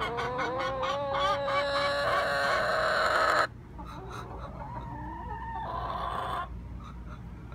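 Hen in a nesting box giving a loud, drawn-out call that rises slightly and cuts off suddenly about three and a half seconds in. A quieter, higher-pitched call follows.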